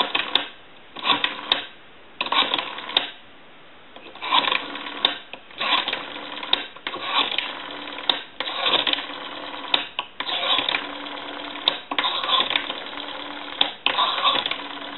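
Western Electric 500's rotary dial dialled digit after digit, about ten times: the dial is wound and spins back each time with a burst of clicking.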